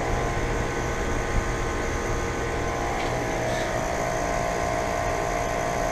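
Daikin outdoor air-conditioner condensing unit running: a steady compressor hum with a held mid-pitched tone under the even rush of its condenser fan.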